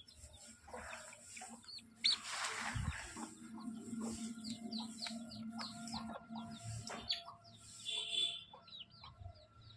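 Birds chirping over and over in short, falling calls, with a brief rustling rush about two seconds in and a low hum for a few seconds in the middle.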